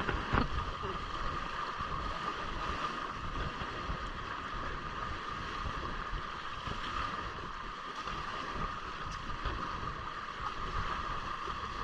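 Water rushing and splashing past the hulls of a small sailing catamaran under way, with wind buffeting the microphone as a low rumble. A steady high hum runs underneath.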